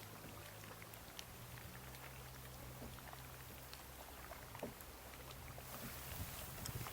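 Melting glacier ice popping as ancient trapped air bubbles burst free into the water: many faint, irregular ticks scattered through, over a faint low steady hum.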